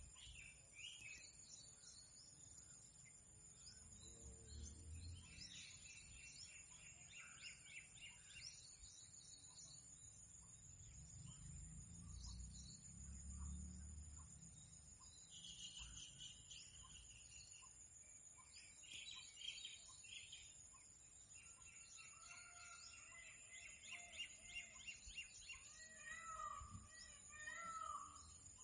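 Faint wild forest ambience: birds chirping in short repeated trills over a steady high-pitched hum, with a low rumble a few seconds in and again about halfway.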